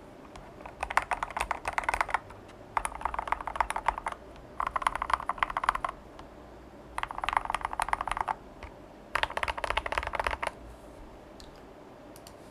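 Custom KBD75v2 mechanical keyboard being typed on fast in five bursts with short pauses between, the typing stopping about two seconds before the end. It has lubed Gateron Ink Black linear switches on a brass plate with SA PBT keycaps.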